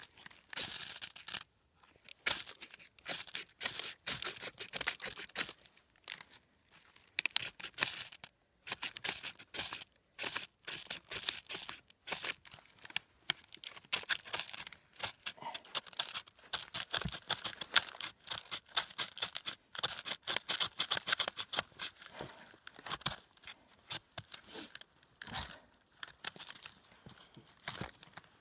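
Knife scraping along a ferro rod in quick, irregular runs of short, sharp, scratchy strokes, with brief pauses between runs.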